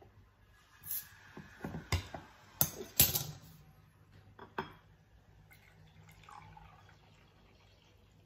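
Bottle opener prying the crown seal off a glass stubby of home-bottled kombucha: several sharp metallic clicks and clinks, the loudest about three seconds in. Then, faintly, near the end, the kombucha pouring into a glass tumbler.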